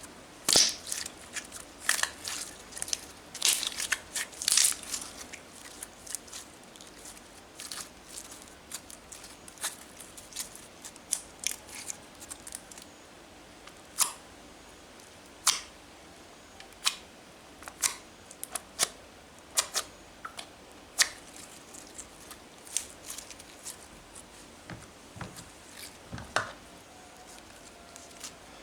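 Homemade slime being squeezed and stretched by hand, giving off irregular sharp clicks and pops, thick and fast for the first five seconds, then scattered.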